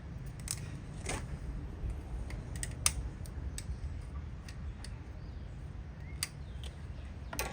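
Needle-nose pliers clicking against the spring clamps of a PCV hose as they are squeezed and worked loose: a handful of short, sharp clicks at uneven intervals, over a low steady rumble.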